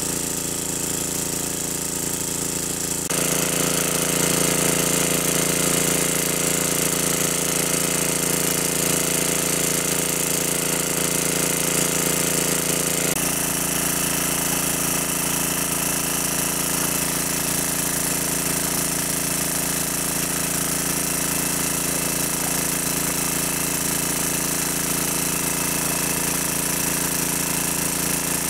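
Water pump's motor running steadily at a loud, constant drone, its tone shifting suddenly about three seconds in and again about thirteen seconds in.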